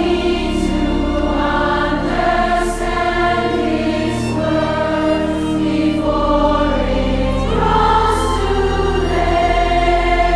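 Background music: a choir singing, with sustained low notes underneath.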